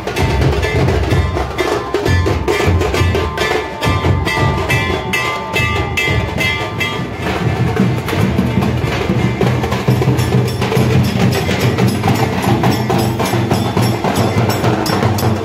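Dhol drums beaten with sticks in a fast, dense rhythm, with sharp, cracking strikes over deep drum beats.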